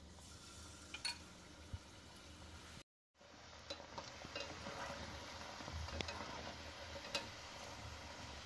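Battered boiled-egg pieces deep-frying in hot oil, a faint steady sizzle, with a few sharp clicks of metal tongs and a wire skimmer against the pan. The sound cuts out for a moment about three seconds in, and the sizzle is fuller after it.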